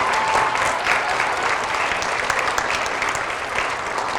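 Audience of schoolchildren applauding an award winner, the clapping slowly dying down.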